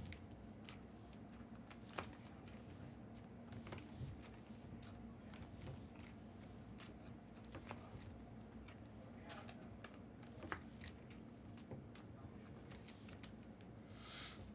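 Faint handling of trading cards, with scattered light clicks and rustles as cards are flipped through, over a steady low hum.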